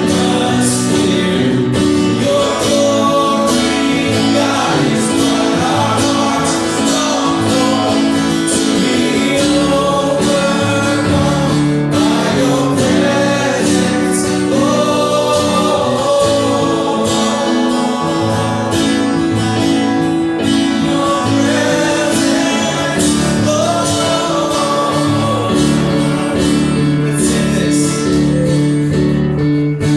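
Live congregational worship music: singers over guitar and band, sung as a slow gospel-style worship song.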